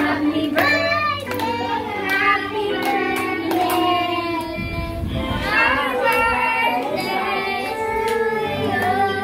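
A voice singing a melody over recorded music with steady bass notes and a regular beat.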